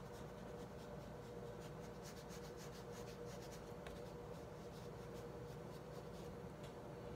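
Faint, scratchy strokes of a small watercolour brush dabbing on cold-press black watercolour paper, repeated short touches, over a steady faint hum.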